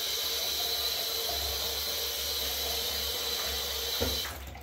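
Bathroom basin tap running steadily into the sink, shut off about four seconds in.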